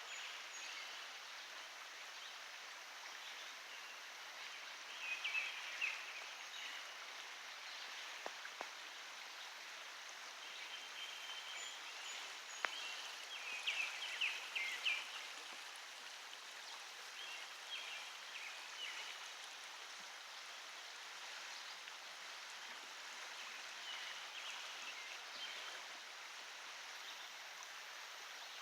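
A creek's water flowing steadily, an even rushing with no let-up, with a few brief louder bursts of higher-pitched sound every several seconds.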